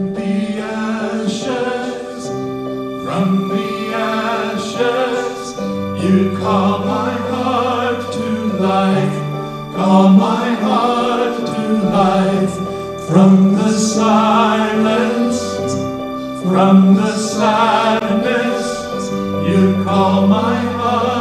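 Church praise team playing the closing song: keyboard chords over a moving bass line, with voices singing the melody.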